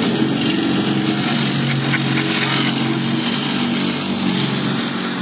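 A boat's engine running steadily, a low, even hum with a constant hiss over it.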